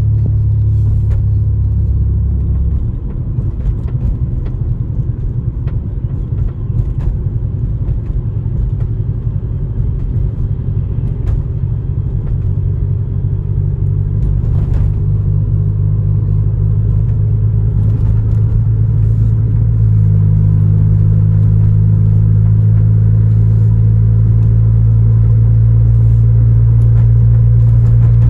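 Honda Civic EJ9 engine running under way while misfiring on all four cylinders (fault codes 71–74). Its low drone turns rough and uneven about three seconds in, then settles into a steadier, louder drone about two-thirds of the way through.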